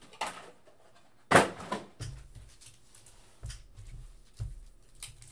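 Foil-wrapped Topps Chrome card packs rustling and knocking as they are handled and stacked on a table, with one louder crinkle about a second in and a few soft thuds later.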